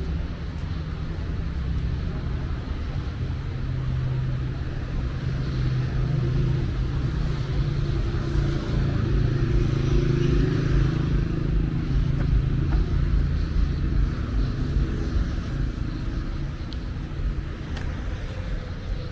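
Street traffic: cars running along the adjacent road, a steady low rumble that swells for several seconds around the middle as a vehicle passes close.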